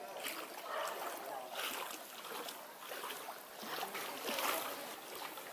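Floodwater splashing and sloshing in repeated surges about once or twice a second.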